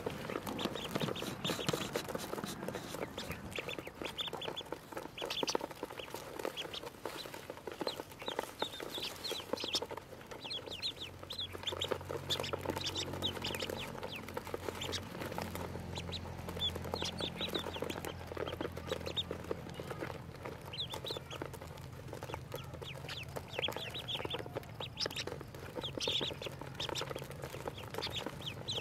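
A brood of ducklings peeping: many short, high chirps in quick clusters, overlapping one another. A low steady hum comes in partway through.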